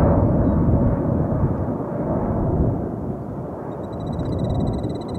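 Jet airliner engine rumble dying away as the aircraft moves off. A high, rapidly pulsing trill comes back in near the end.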